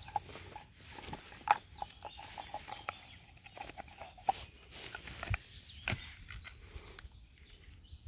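Knife blade scraping and clicking as it is pushed into its plastic sheath, with irregular small clicks throughout and a sharper click about six seconds in.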